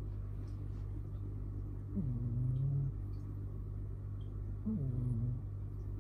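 Munchkin cat snoring loudly in its sleep: two snores about two and a half seconds apart, each a pitched sound under a second long that drops in pitch and then holds.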